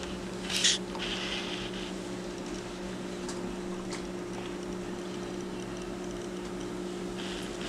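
A steady low hum throughout, with a brief rustle just after the start and a few faint soft knocks as green bell peppers are set into a pot of water.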